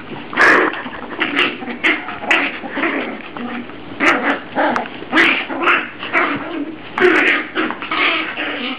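A puppy and a German Shepherd play-fighting, with many short dog vocalizations in quick succession.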